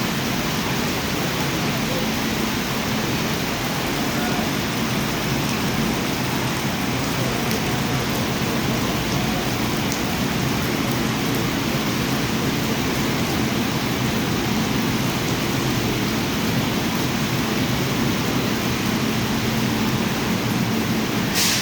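Heavy rain falling steadily in an even, unbroken hiss, with a brief sharp noise just before the end.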